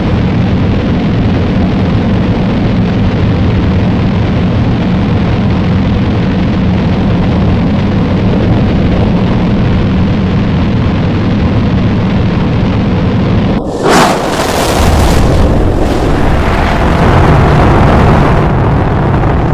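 A large firework rocket burning with a loud, steady rushing hiss as sparks and flame spray from its base. About fourteen seconds in there is a sharp bang, and the loud rushing noise goes on after it.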